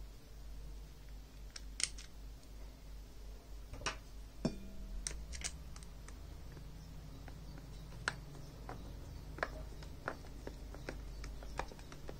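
A dozen or so irregular sharp clicks and taps of a small screwdriver and plastic and metal parts being worked at the headband joint of a HyperX Cloud Alpha headset, over a faint low steady hum.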